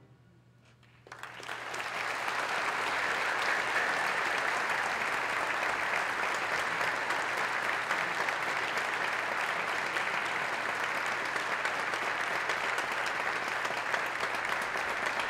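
About a second of near silence, then concert audience applause breaks out and continues steadily.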